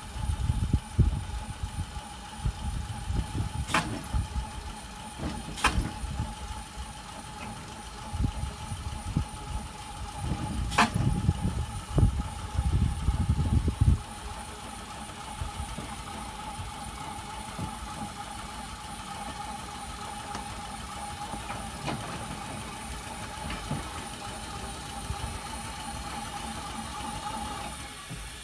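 Rail crane car rolling slowly along the track: a low uneven rumble with three sharp metallic clanks in the first half, then a steadier, quieter run, over a constant high whine.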